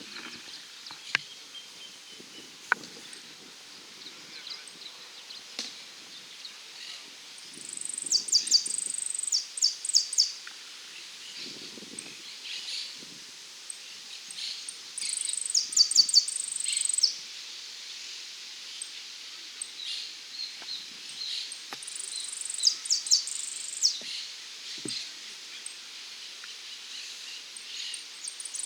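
An insect calling at intervals of about seven seconds, each call a high buzz that breaks into a quick run of clicks, over a steady outdoor background noise.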